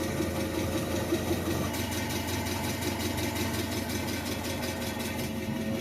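Mitsubishi FGC25 LP-gas forklift engine idling steadily on propane.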